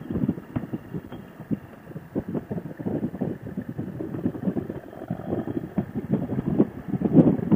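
A motorcycle under way: wind buffeting the rider's microphone, with engine noise underneath, growing louder near the end.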